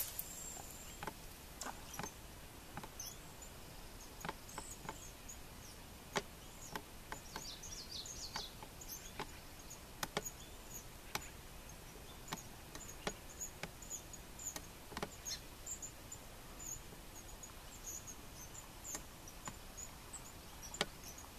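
Quiet pond ambience at dusk: faint, short, high-pitched chirps come and go, bunched together about a third of the way in, over a low background hiss, with scattered sharp ticks every second or two.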